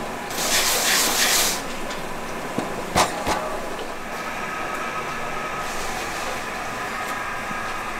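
Factory conveyor machinery carrying clay pot lids, running steadily. A burst of hiss starts about half a second in and lasts about a second, and a single sharp knock comes about three seconds in.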